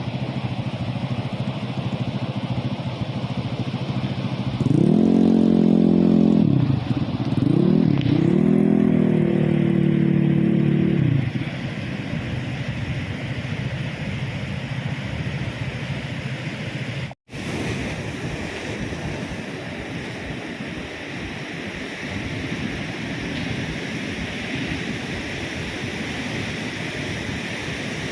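Motorcycle engine with the rush of riding. About five seconds in, the engine revs up and falls back twice over some six seconds. After a short break, a steady rushing noise continues.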